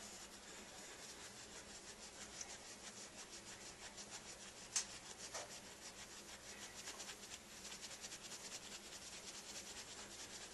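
A wooden spindle spun rapidly back and forth between the palms against a wooden hearth board, a hand-drill friction fire. It makes a faint, steady rubbing made of quick, even strokes, with one sharp tick about five seconds in.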